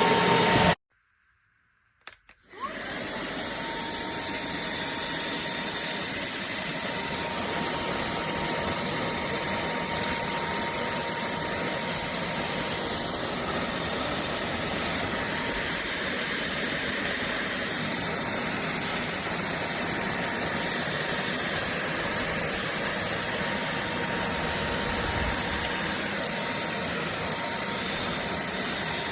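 Cordless handheld vacuum cleaner running steadily with a motor whine. After a brief dead-silent gap about a second in, it runs on unchanged.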